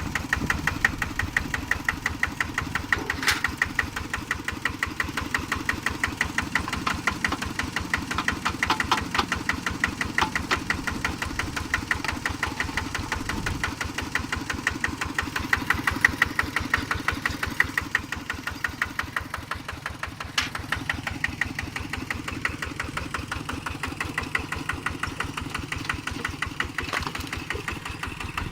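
An engine running steadily with a rapid, even pulse, and a few sharper clicks here and there.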